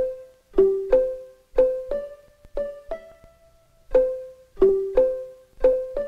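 Tin jack-in-the-box's crank music movement playing a slow tune, one tinkly plucked note at a time, each ringing out, with a short pause about three seconds in.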